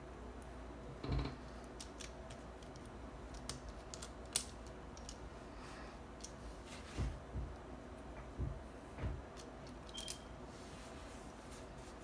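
Plastic pieces of a 5x5 Rubik's cube clicking and tapping as they are handled and fitted into the partly assembled cube, with a few soft knocks.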